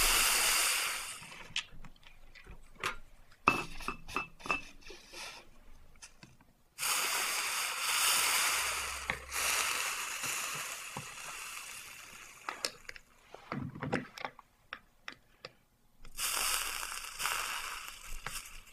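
Flux sizzling under a hot soldering iron as solder melts onto a zinc bar in a copper-foiled stained glass box. It comes in three spells that start sharply and fade. Light clicks and taps fall between them.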